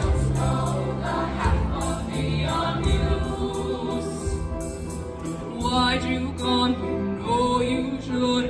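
A choir singing with instrumental backing music.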